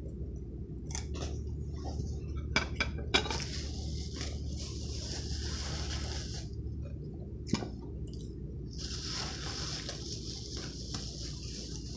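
A utensil clinking against a ceramic bowl, a few sharp clinks, with rustling; a plastic bag crinkles in the last few seconds.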